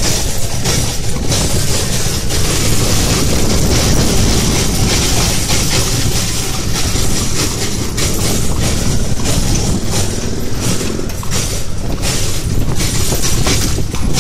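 Horse-drawn cart rolling along a road: a steady low rumble with continual irregular rattles and clacks from the wheels and wooden body.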